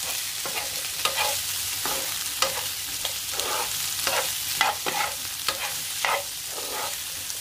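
A metal spoon stirring and scraping boiled Chinese potato (koorkka) pieces through frying shallot and chilli masala in a frying pan, in irregular strokes about every half second. A steady sizzle of hot oil runs underneath.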